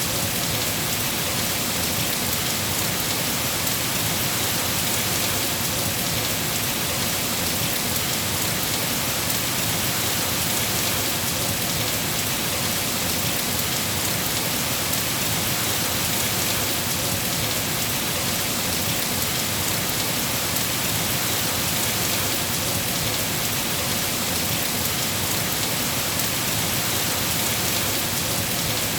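Steady rainfall, an even, unbroken hiss with no separate drops or thunderclaps standing out.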